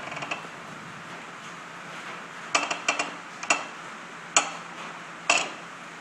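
Metal parts of a manual tube bender clinking and clacking: a quick cluster of sharp metallic clicks about halfway through, then single louder clanks about a second apart, each ringing briefly.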